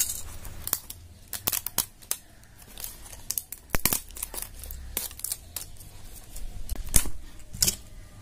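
Wrapper label being torn and peeled off a plastic toilet-cleaner bottle: a string of irregular crinkling crackles and sharp snaps, a few of them louder.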